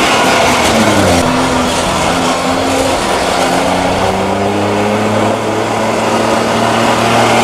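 DKW Munga's two-stroke engine running under load as the vehicle drives. Its pitch shifts about a second in and then rises slowly.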